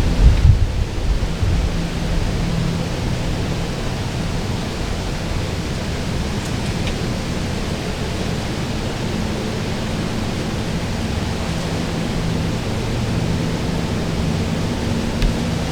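Wind noise on the microphone: a steady rush, with low buffeting gusts just after the start and again near the end.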